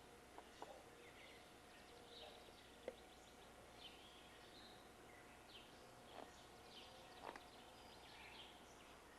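Faint songbirds chirping, with short scattered calls over a steady tape hiss and a faint steady hum, and a few soft clicks.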